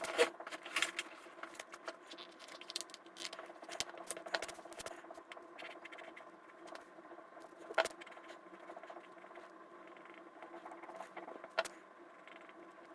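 Light, irregular clicks and taps of drawing at a computer, over a steady electrical hum. The clicks cluster in the first few seconds, with a sharper one about eight seconds in and another near the end.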